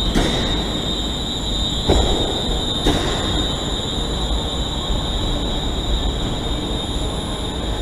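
ScotRail Class 380 Desiro electric multiple unit running on the line: a steady rumble under a continuous high whine, with two sharp knocks from the wheels about two and three seconds in.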